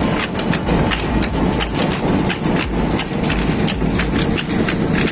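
Rice mill paddy-cleaning machinery running: a belt-driven vibrating sieve shaking paddy, a dense, uneven clatter over a steady low machine hum.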